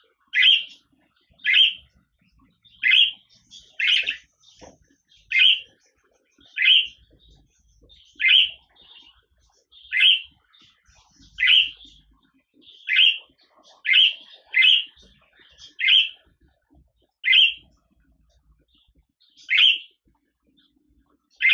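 Budgerigar giving short chirps over and over, about one every second and a half.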